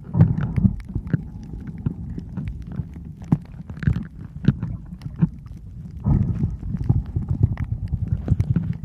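Water sloshing and rumbling against a submerged camera while snorkeling, with irregular small clicks and knocks throughout and louder surges about a second in and again from about six seconds.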